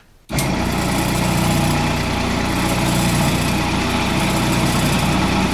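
Wood lathe running steadily while a skew chisel shaves the turned tenon down to size. The sound starts abruptly just after the start and holds level, a low motor hum under a steady hiss.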